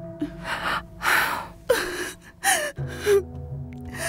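A person gasping and breathing hard, about six sharp breaths in quick succession, some with a short voiced catch, over a low sustained music drone.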